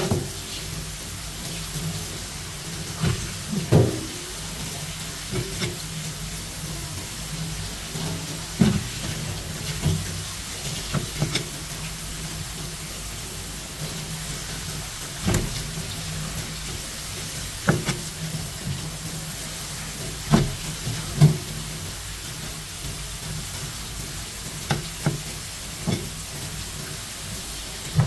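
Knife and hand handling juvenile rock bream on a cutting board while they are scaled and cleaned: short knocks and taps at irregular intervals over a steady hiss and a low hum.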